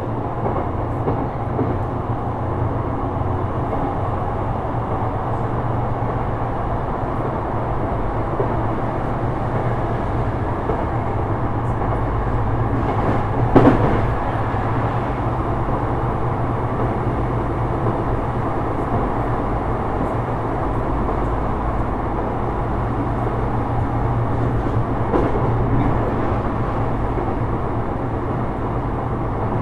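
Sotetsu 12000 series electric train running steadily at speed, heard inside the car: an even rumble of wheels on rail with a low steady hum. A few clacks over rail joints, the loudest about halfway through.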